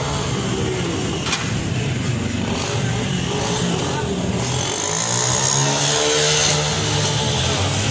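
Street traffic: a motor vehicle's engine running close by, its note swelling and bending about five to seven seconds in, over a steady din of the street.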